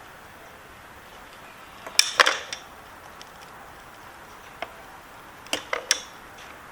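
Small sharp clicks and taps of hand tools against a plastic wiring connector and its pins: a quick cluster about two seconds in, a single tick, and another cluster near the end.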